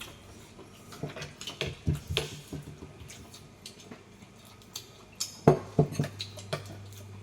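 Eating utensils clinking and knocking against dishes in scattered strokes, in two clusters, the loudest knocks a little past the middle.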